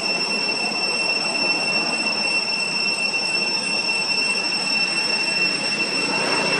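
Cicadas droning steadily at one high pitch over a dense hiss.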